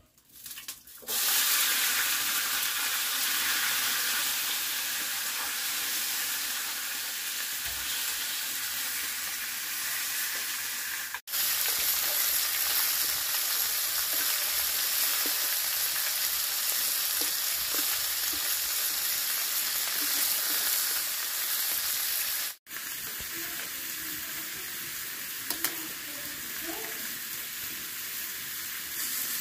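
Food sizzling as it fries in a hot pan, a steady hiss. It drops out twice for a moment, about a third and two-thirds of the way through, and is quieter after the second break.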